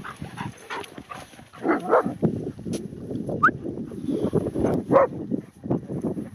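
A German shepherd and a yellow Labrador vocalising in play: a string of short barks and yips, with a brief rising whine about three and a half seconds in.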